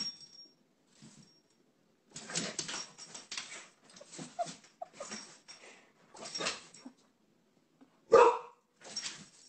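A small dog huffing and snuffling in a run of short breathy bursts at a hole in a concrete floor, with one sharp bark about eight seconds in.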